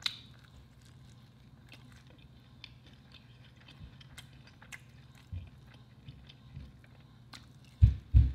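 Close-miked eating of sauce-coated, batter-fried chicken wings: quiet bites, chewing and small crackles from the batter. Near the end come a few heavy, low thumps, the loudest sounds here.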